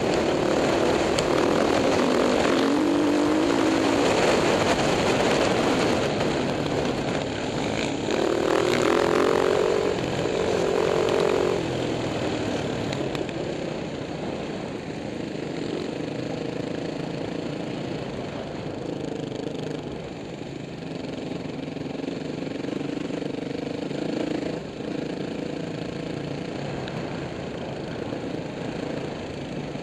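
Husqvarna SM510R supermoto's single-cylinder four-stroke engine heard from on board under race load, the revs sweeping up hard twice in the first half. From about halfway through it runs quieter and steadier.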